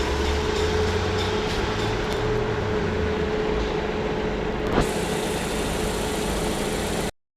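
Maruti Suzuki Dzire's petrol engine idling steadily, running evenly with no misfire now that its spark-plug fault is fixed. A single click about five seconds in, and the sound cuts off abruptly near the end.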